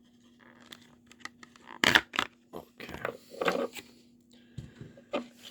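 Rustling, crinkling and small clicks of a remote pressure switch and its plastic packaging being handled, loudest about two seconds in.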